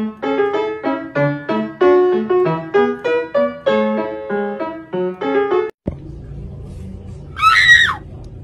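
Light piano music with evenly struck notes, cut off suddenly. Then a low steady hum and one short, loud, high-pitched squeal with a wavering, sliding pitch, from a hamster standing with its mouth wide open.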